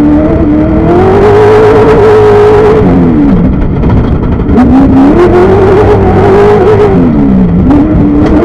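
Class 1 desert race car's engine under hard throttle, its note climbing, holding high and then dropping off, twice, as the car charges over a dirt course. Short knocks and rattles and rushing noise run under the engine, picked up by an onboard microphone.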